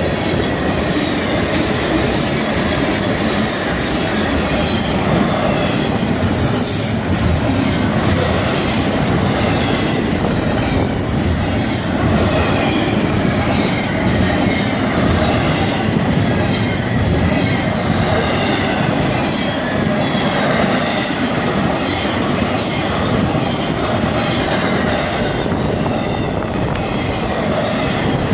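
Florida East Coast Railway freight cars rolling past at close range: a loud, steady rumble and clatter of wheels on rail, with some high wheel squeal over it.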